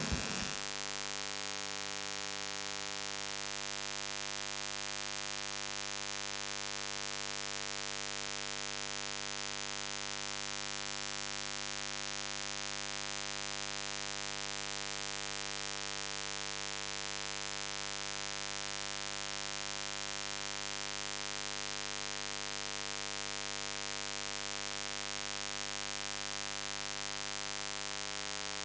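Steady electrical mains buzz and hiss from the live microphone and sound system, unchanging throughout.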